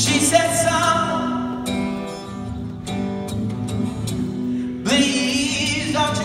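Live acoustic song: steady acoustic guitar chords under a male voice singing, with a harmonica playing along. The melody rises out strongly in the first second or so and again near the end.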